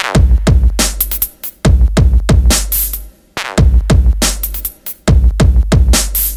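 Electronic background music with a drum-machine beat and deep bass, the beat dropping out briefly every second and a half or so.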